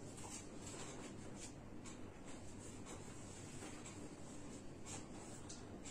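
Marker pen writing on a whiteboard: faint, irregular short strokes over a low steady room hum.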